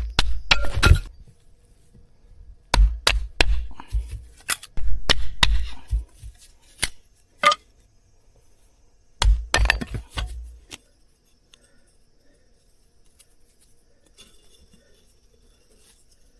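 Firewood being split for a campfire: sharp wooden knocks and chops in irregular clusters, stopping about eleven seconds in.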